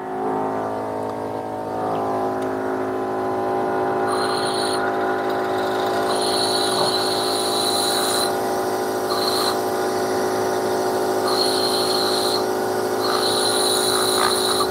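Bench grinder motor running up to speed and then humming steadily, with a metal part pressed to the wheel in about five short passes that each add a high, bright grinding tone: deburring freshly made door-hinge pins.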